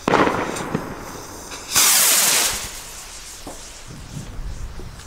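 Firework rockets from a Pyroland Faszinat set. A sharp burst of sound at the very start trails off, then about two seconds in a loud hissing rush lasts under a second as a rocket lifts off.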